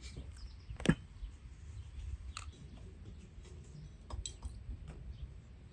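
Scattered light clicks and knocks of cutlery and dishes, with one sharper knock about a second in.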